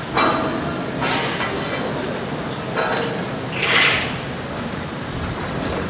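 Heavy construction-site machinery running steadily, with several sudden metallic knocks and clatters and a short hissing scrape a little before four seconds in.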